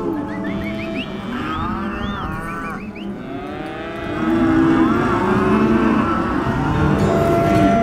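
A pen of cattle bawling, many calls overlapping and rising and falling in pitch, getting louder about four seconds in.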